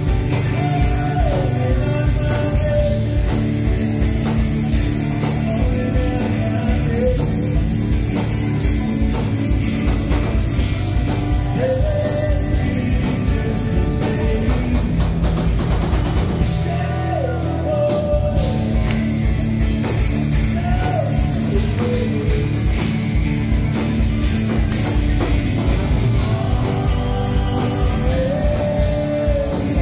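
Live rock band: a male lead singer over strummed acoustic guitar, electric guitar and drum kit, with the drum beat dropping out briefly about halfway through.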